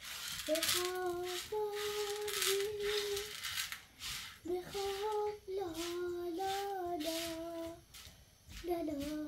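A high voice singing a slow, unaccompanied melody in long held notes that step up and down, in three phrases with short breaks between.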